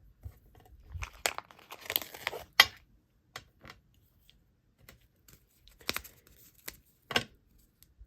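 Sticker sheets and paper crinkling and peeling as they are handled, in irregular crackles that are busiest in the first few seconds, followed by a few sharp clicks or taps.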